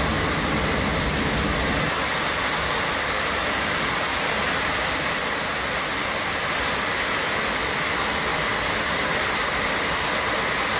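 Steady rushing roar of air and engine noise filling the cabin of an Airbus A321 airliner, unbroken and even throughout.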